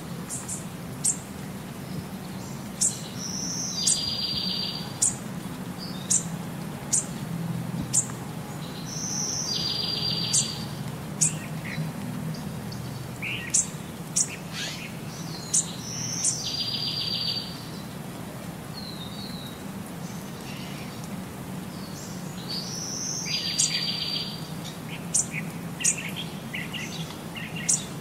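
Small birds chirping and twittering, with the same high note and rapid trill coming back about every six and a half seconds, over a low steady hum.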